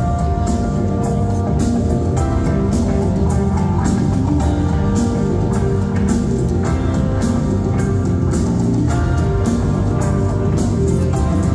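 Live instrumental electronic rock from a band playing on stage: a steady, regular drum beat over heavy bass, with guitar and synth lines, loud and continuous.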